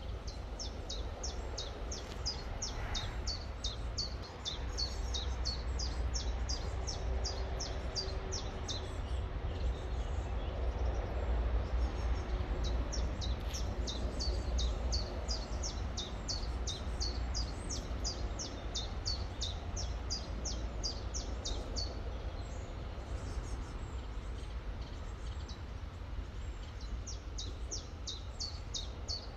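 A river flowing steadily, with a low rumble under it. Over it a small songbird repeats a quick series of short, high notes that fall in pitch, several a second, in three long runs with brief pauses between them.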